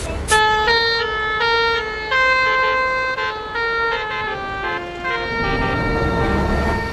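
Telolet basuri multi-tone bus horn playing a quick tune: held notes stepping up and down in pitch, several tones sounding together, starting a moment in and running on. A low rumble swells under it in the second half.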